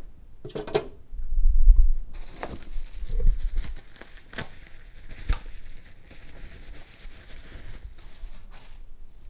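Pink anti-static plastic bubble bag crinkling and rustling as it is handled and opened, with scattered sharp clicks. A dull thump about a second and a half in is the loudest moment.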